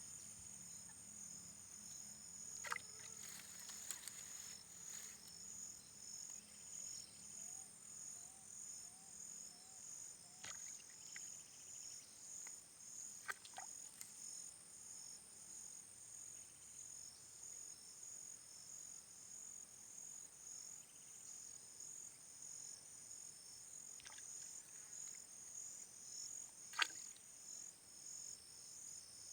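Steady, evenly pulsing high-pitched insect chorus with frogs calling, and a few sharp knocks or splashes scattered through it, the loudest near the end.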